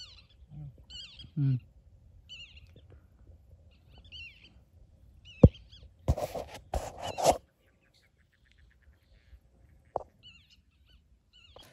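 A bird calling again and again in short, wavering high notes, about one call a second, through the first half. Around the middle comes a louder burst of rustling noise with a couple of sharp clicks.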